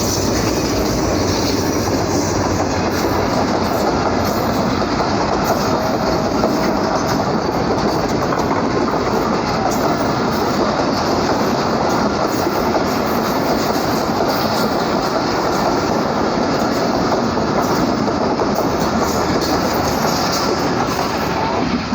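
Passenger express train running through the station at speed: a steady, loud rush of steel wheels on the rails as the coaches go by.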